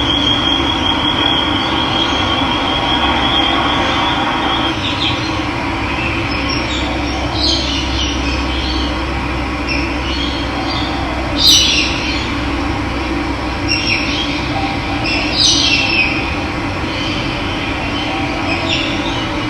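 Running water rushing steadily, with wild birds calling over it: a high, thin trill in the first few seconds, then a handful of short chirps, the loudest about halfway through.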